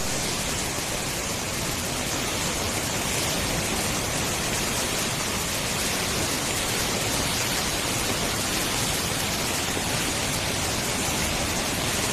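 Flash-flood torrent of muddy water rushing and churning through a street, a loud, steady rush without a break.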